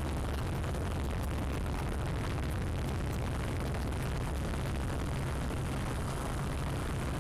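Steady low rumble with a hiss over it, the propellers of the camera drone and the wind on its on-board microphone.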